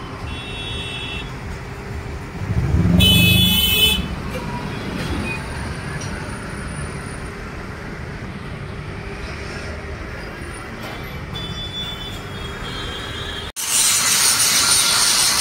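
Open-air background noise with a short horn blast about three seconds in. Near the end, after a sudden cut, an angle grinder grinds down the weld beads on a steel flat-bar grille with a loud, steady grinding noise.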